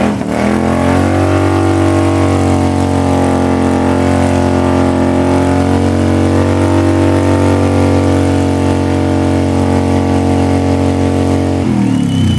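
Harley-Davidson motorcycle's V-twin engine revved up and held at high revs through a burnout, the rear tyre spinning on the pavement, then the revs drop near the end.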